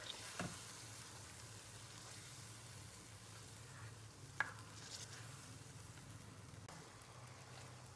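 Chicken pieces in beaten yogurt and oil sizzling faintly in a karahi while a spatula stirs them, with a light knock of the spatula about four and a half seconds in.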